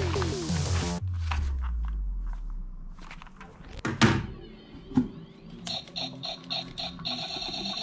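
Electronic sound effects from battery-powered toy guns that cut off about a second in and fade with a low falling tone, then plastic toys knocking in a cardboard box, two knocks louder than the rest. Near the end a toy gives quick electronic beeps, about three a second, that run into a steady tone.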